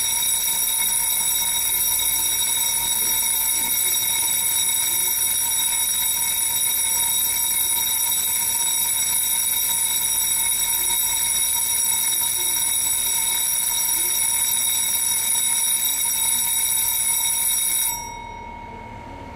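Railway platform departure bell ringing continuously, a steady electric ring that cuts off suddenly near the end: the warning that the train is about to leave.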